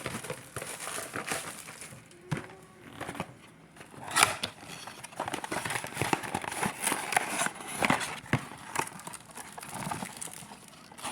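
Foil booster-pack wrappers crinkling and being torn open, with cards and packs being handled, in an irregular run of crackles and sharp clicks that is busiest in the middle.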